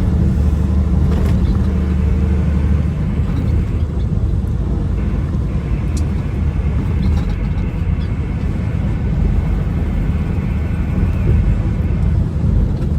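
Semi-truck engine and road noise heard from inside the cab, a steady low rumble. A strong low engine tone drops away about three seconds in.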